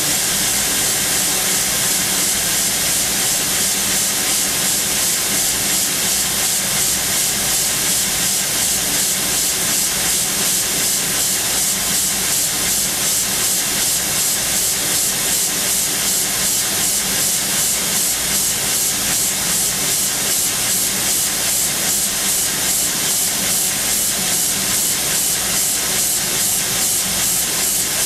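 Machining center peck-drilling hardened tool steel with a 1 mm carbide drill: a steady spraying hiss over a low spindle hum at 13,000 rpm, pulsing regularly with the short pecks.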